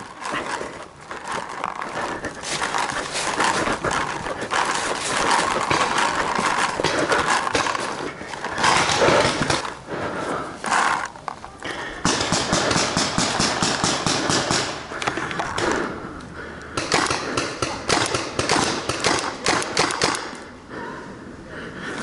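Paintball markers firing in fast runs of sharp pops, with knocks and rustling of the player's gear; the quickest, most even volley comes about halfway through.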